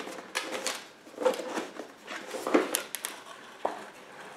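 Cardboard mailing box being handled and opened: a run of short scrapes, rubs and taps of cardboard, spaced unevenly.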